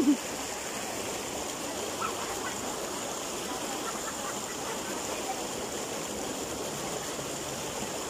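Mountain stream rushing and splashing over rocks in a small cascade, a steady, even rush of water.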